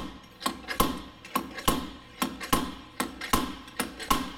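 Slide hammer striking its end stop over and over, about ten sharp metallic clanks that each ring briefly, as it jerks a seized front wheel hub out of the wheel bearing on a BMW 328xi. The hub is not coming free yet.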